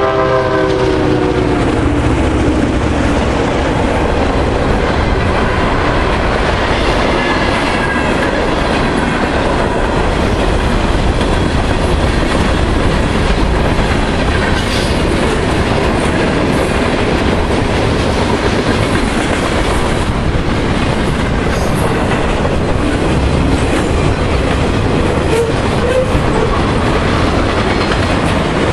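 A CN freight train passing close by: the diesel locomotive's horn drops in pitch and fades as it goes past in the first couple of seconds. Then comes the loud, steady noise of freight cars and tank cars rolling past on the rails.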